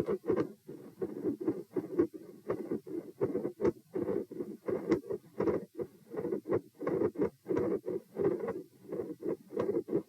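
Heart sounds heard through a stethoscope: a regular lub-dub heartbeat with sharp clicks in each beat and a rustling noise between beats.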